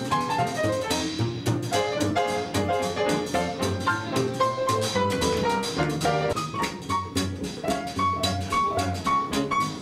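A live jazz band playing an instrumental passage, the piano to the fore over a drum kit keeping a steady beat.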